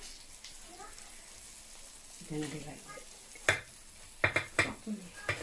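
Metal slotted spatula scraping and clicking against a frying pan while a potato omelette is slid out onto a plate, with a faint sizzle from the hot pan. The clicks come in a cluster in the second half.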